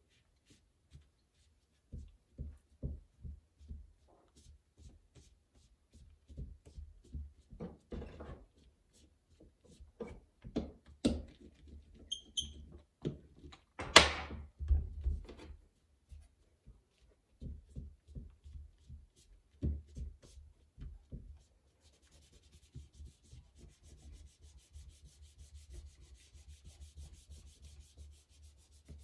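Clay and hand tools worked on a worktable: a run of light knocks and taps with one sharp clack midway, then a faint steady scraping from about two-thirds of the way in.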